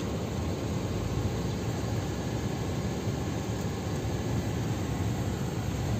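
Toyota Noah 4WD minivan on the move, heard from inside its cabin: a steady low rumble of engine and tyre noise with no separate knocks or changes.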